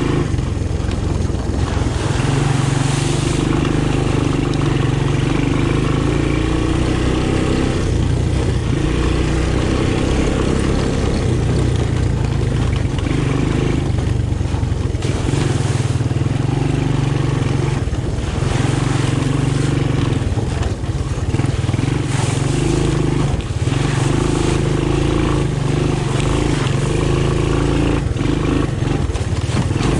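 Honda ATC 200M three-wheeler's single-cylinder four-stroke engine running while riding, its revs rising and falling a little with the throttle. A few short rushes of noise come over it.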